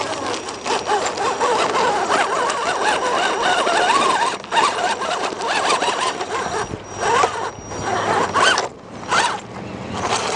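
Electric RC rock crawler's motor and gears whining as it climbs over rock, the pitch wavering up and down with the throttle, with short breaks about four and a half seconds in and again near the end.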